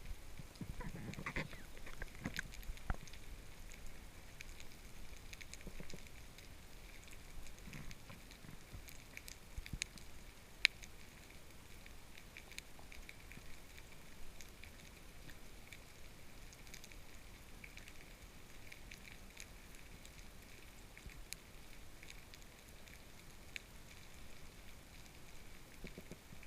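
Underwater ambience with faint low knocks of brown meagre (Sciaena umbra) drumming, clustered in the first few seconds, over a sparse crackle of clicks; one sharper click about eleven seconds in.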